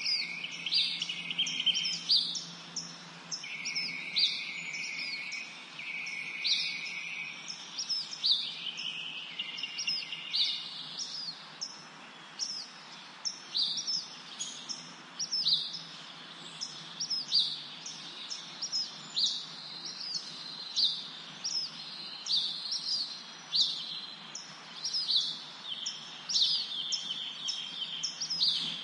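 Birds chirping: many short, quick falling chirps, about one or two a second, with longer buzzy trills at times.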